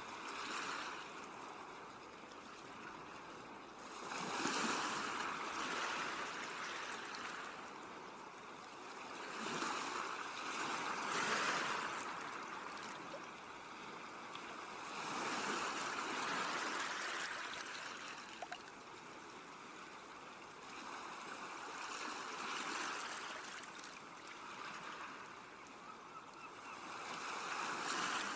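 Sea waves breaking on a shore, the surf swelling and falling back every few seconds.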